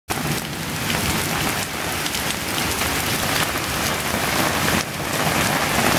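Torrential rain pouring onto flooded pavement: a steady, loud hiss of falling drops.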